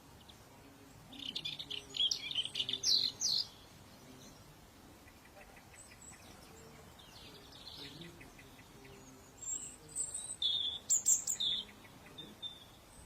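Songbird chirping and singing in two quick, high-pitched bursts, one near the start and one about ten seconds in.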